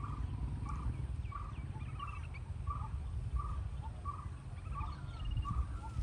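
A short, identical animal call repeating evenly about one and a half times a second, over a steady low rumble, with a few higher bird chirps in between.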